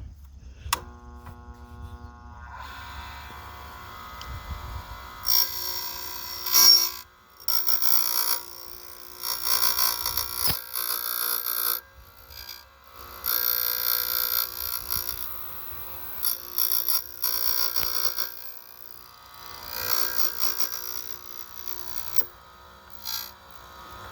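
Key duplicating machine: switched on with a click about a second in, its motor hums steadily, then the cutter wheel cuts into a metal key blank in repeated harsh, high-pitched passes of a few seconds each as the carriage is worked across.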